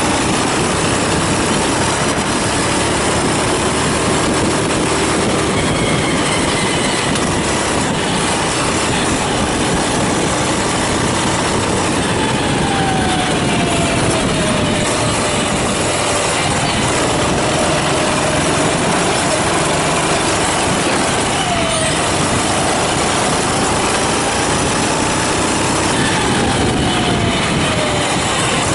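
Racing kart engine running hard on track, its pitch sliding down and back up several times as it slows for corners and accelerates out, over a steady noise of wind and track.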